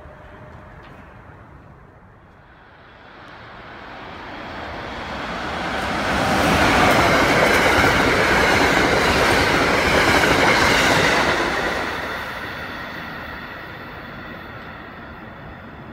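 Amtrak passenger train of Amfleet coaches passing at speed. A rush of wheels on rail builds from about three seconds in, is loudest through the middle, and fades over the last few seconds as the train goes by.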